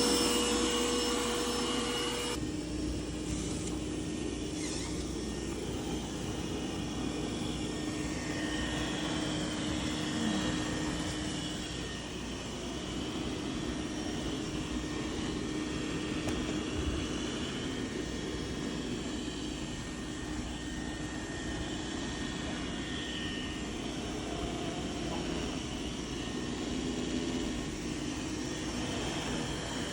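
Robot vacuum cleaner running with a steady whir from its suction fan and brushes. About two seconds in, the whine drops to a lower pitch and the sound gets slightly quieter, as if the fan has changed speed.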